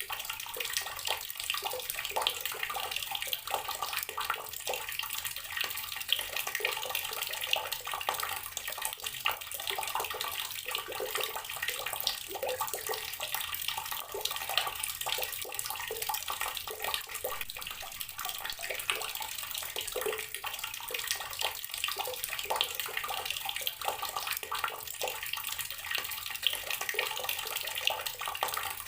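Water running steadily from an outdoor tap, splashing and trickling with many small irregular splashes.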